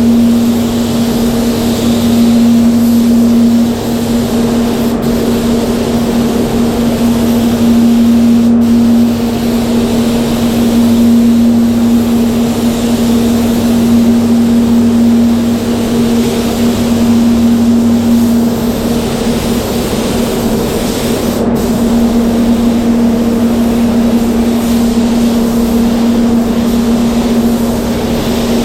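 Paint spray booth running with a steady hum over a heavy hiss of air, the hiss swelling and easing every few seconds as a spray gun lays on clear coat.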